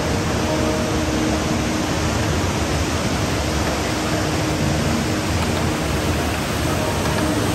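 Steady rush of an indoor waterfall pouring into a pool, with a few faint held tones underneath.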